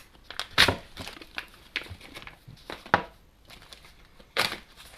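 New axle drain plugs and their packaging being handled: a handful of short, sharp clicks with crinkling rustles between them.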